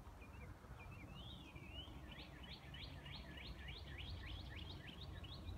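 A songbird singing: a few scattered chirps, then from about two seconds in a fast run of downward-slurred notes, about five a second, over a low steady rumble.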